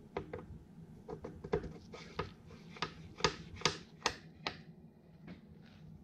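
Valve lifters in a 1942 Farmall H engine block clicking as they are slid into their lubed bores and worked up and down by hand: a string of irregular sharp metal clicks, loudest in the middle.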